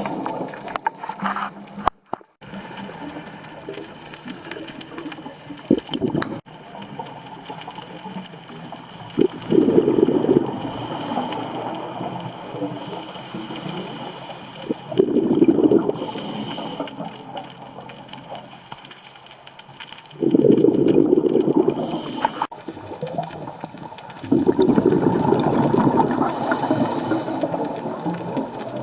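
Scuba diver's regulator breathing underwater: a rush of exhaled bubbles comes every five or six seconds, with quieter stretches between breaths.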